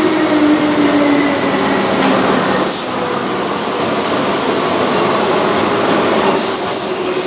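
Keihan 2400 series electric commuter train running past on curving track, with a steady rumble of wheels on rails. Its motor hum falls in pitch over the first two seconds. Two short high hisses come through, a brief one under halfway and a longer one near the end.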